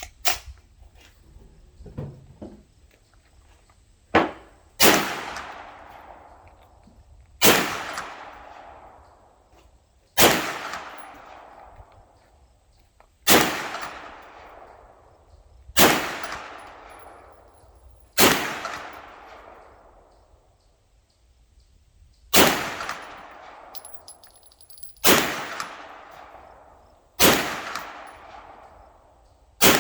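Ruger PC Carbine 9mm rifle being fired in slow, aimed single shots, about ten in all, two to three seconds apart, each shot followed by a trailing echo. A few lighter clicks come just before the first shots.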